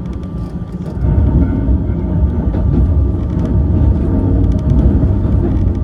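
Yokkaichi Asunarou Railway 260-series narrow-gauge electric train with nose-suspended traction motors, running and heard from inside the front car. A heavy rumble carries a steady motor and gear whine, and both grow louder about a second in.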